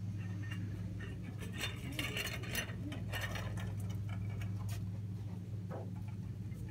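Hot Wheels blister-card packages being handled and shifted on store pegs: scattered light clicks and crinkles of cardboard and plastic, heaviest in the middle, over a steady low hum.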